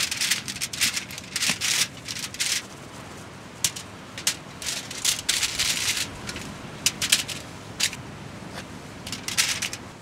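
Irregular crinkling, rustling and small clicks of tinfoil and food packaging being handled while canned cinnamon-roll dough is cut into pieces with a knife. The noises come in clusters, busiest in the first couple of seconds and again about five seconds in.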